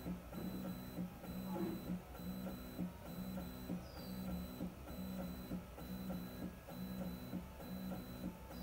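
Voron 2.4 3D printer's stepper motors humming through a run of short, repeated moves, about two a second, each move a steady pitched hum that stops and starts again.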